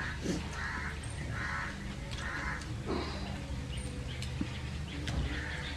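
A crow cawing over and over, short harsh calls about one a second, with a few faint clicks between them.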